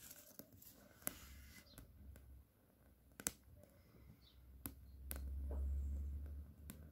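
Faint sharp clicks, four or five of them scattered through, with a low rumble over the last two seconds.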